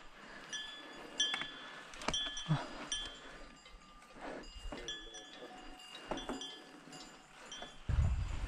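Cattle bells clanking irregularly: scattered metallic rings that each fade quickly. A low rumble of wind or tyres comes in near the end.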